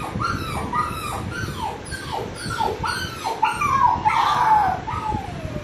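Recorded puppy crying played on a TV: a quick string of high-pitched whimpers, each one dropping in pitch, about three a second. A longer, louder whine comes about four seconds in, and a drawn-out falling one near the end.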